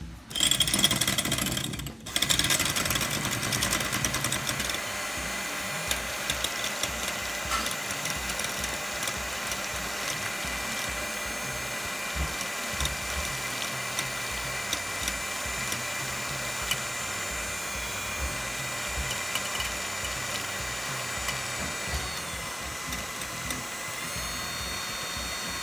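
Electric hand mixer running, its twin beaters whipping egg whites with lemon juice in a glass bowl as they froth up. It stops briefly about two seconds in, then runs steadily, louder for the first few seconds.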